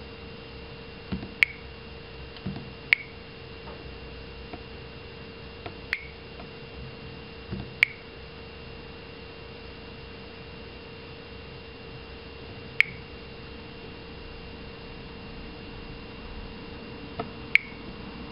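Fingertip taps on Samsung Wave smartphone touchscreens, each followed a moment later by the phone's short, sharp touch-feedback click; six clicks at irregular intervals, over a steady faint hum.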